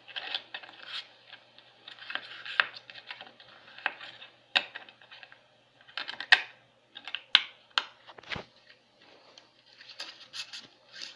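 A plastic DVD case, its paper insert and the disc being handled: a string of irregular clicks, taps and rustles, with a dull knock a little past the middle.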